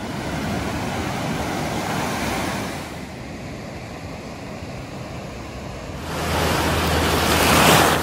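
Pacific Ocean surf breaking and washing up a sandy beach, a steady rushing wash. Near the end a wave rushes in close and grows louder.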